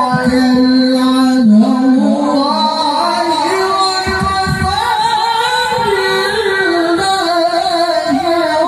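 A male qari reciting the Quran in the melodic tilawah style into a handheld microphone, amplified over a PA. He holds long, ornamented notes high in his voice, with slow melismatic turns between pitches.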